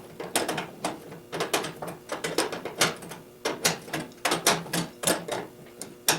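Clusters of sharp metallic clicks from hand tools at work on the machine, two or three clicks at a time, roughly every second.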